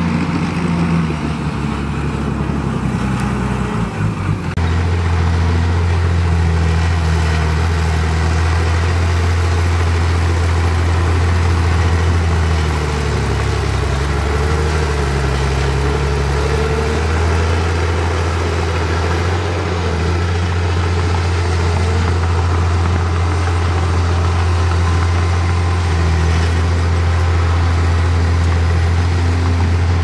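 Heavy diesel engine of earthmoving machinery running at a steady speed, its note shifting briefly about four seconds in and then holding steady.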